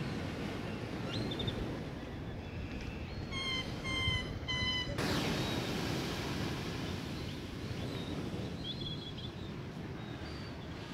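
Small waves washing onto a sandy beach, a steady surf hiss, with a fresh wave breaking about five seconds in. Birds chirp and call over it, including a run of four or five repeated clear notes just before the wave breaks.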